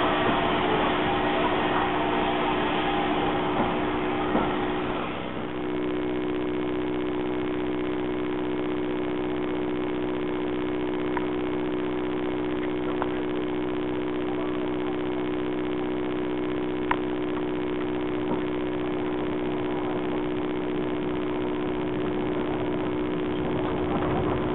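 Steam locomotive passing close alongside, a loud rushing noise for about five seconds. It then gives way at once to a steady mechanical hum of several even tones, with a few faint clicks.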